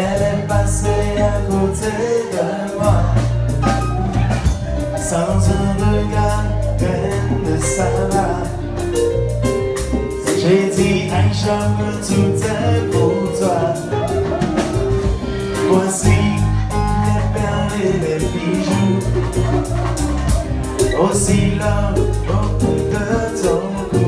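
Live band music: a male lead singer sings into a microphone over drum kit, acoustic guitar and electric guitar, playing without a break.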